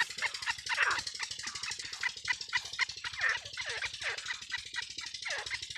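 Caged francolins calling: a busy series of short harsh chips and repeated downward-sweeping calls, several birds overlapping.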